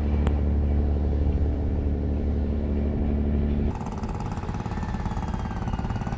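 An engine running with a steady low hum; about three and a half seconds in the sound changes abruptly to a rougher, pulsing engine note.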